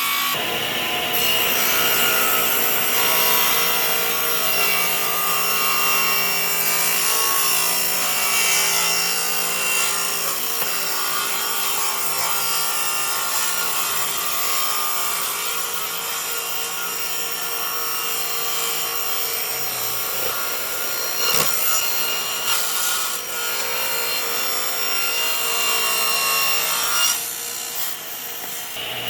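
A tool working wood, running steadily: a dense abrasive noise with a high whine held through it, and a brief knock about three quarters of the way in.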